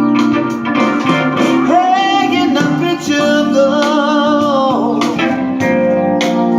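Music with a singing voice and guitar, played through a pair of bullet tweeters during a sound check.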